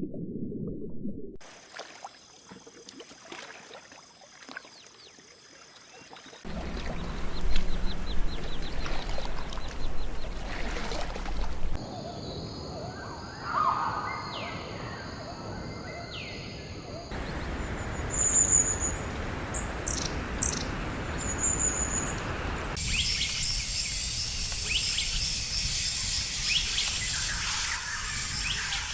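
Rainforest ambience spliced from several recordings, changing abruptly every few seconds. Steady high insect drones run through much of it, with clicks and chirps over them, and a stretch of loud noisy hiss comes in about six seconds in. Short high whistled bird calls sound twice in the middle, and there is a low rumble in the first second.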